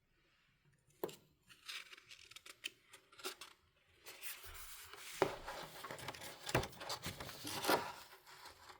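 Paper handling from a picture book being opened and its pages turned: a few clicks and taps at first, then from about four seconds in a denser rustling and sliding of paper with sharp crackles.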